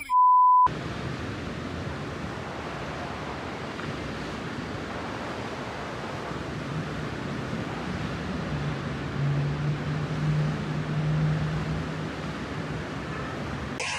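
A short, loud, steady censor bleep at the start, then a steady rush of wind and sea noise at the water, with a faint low hum in the middle.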